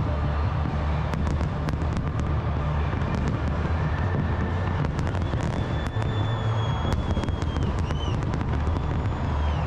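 Fireworks display: a dense string of sharp crackles and pops over a steady low rumble, with a few thin whistles that dip in pitch as they end.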